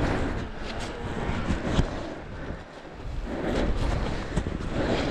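Handling noise from an action camera being gripped and moved, a hand rubbing over it: irregular rustling swells with a few sharp knocks.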